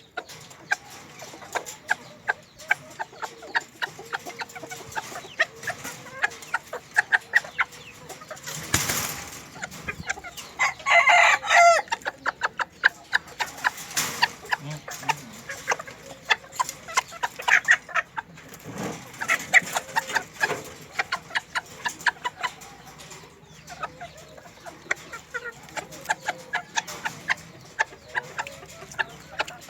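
Bantam chickens clucking in short, repeated calls, with a rooster crowing once, loudly, about eleven seconds in.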